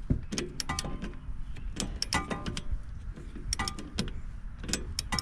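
A wrench ratcheting on a strut nut as it is tightened toward torque: irregular short metallic clicks and clinks, several a second, each with a brief ring.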